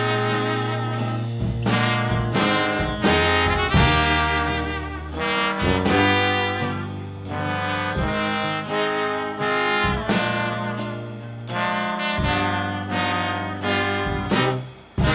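Background music: an upbeat jazzy track led by brass horns over a steady bass line and beat.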